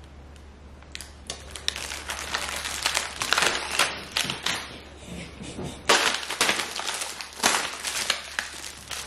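Crinkly plastic wrapping crackling as it is pulled off a tray of cookies: a dense run of crackles starting about a second in, loudest past the middle.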